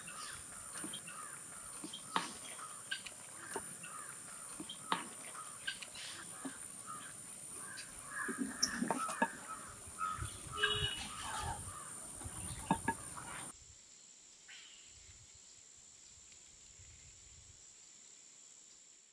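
Rural outdoor ambience with crows cawing, scattered sharp clicks and knocks, and a steady high whine; about two-thirds of the way through the whine and most of the sound stop abruptly, leaving a quieter background.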